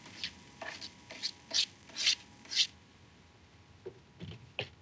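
Chopped bacon being scraped off a flexible plastic cutting board into a frying pan: a run of about seven short scraping strokes over the first two and a half seconds, then a few softer knocks near the end.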